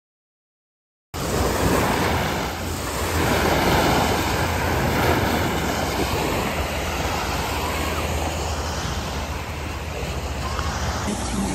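Ocean surf washing up the beach, with wind rumbling on the microphone. It cuts in suddenly about a second in, after complete silence, and then runs on steadily.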